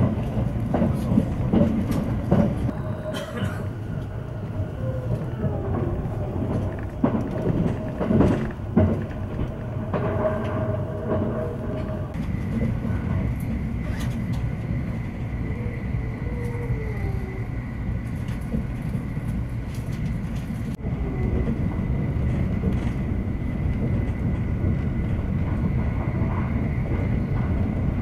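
Cabin of a JR E657-series limited express train running at speed: a steady rumble of wheels on rail with irregular clicks, faint wavering tones, and from about twelve seconds in a thin steady high whine.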